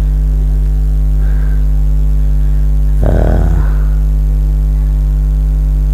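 Loud, steady electrical mains hum on the recording, a low buzz with evenly spaced overtones. A short voice sound cuts in about three seconds in.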